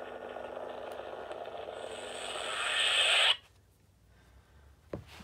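Lightsaber sound effects from a Nano Biscotti V4 sound board playing through the hilt's small speaker: a hissing, static-like hum that swells and then cuts off abruptly about three seconds in as the saber is switched off. A faint handling click follows near the end.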